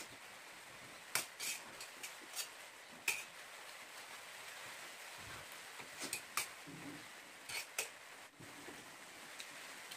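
Steel spoon clinking and scraping against a metal bowl as fried rice is scooped up, in short clusters of sharp clicks, over a steady faint background hiss.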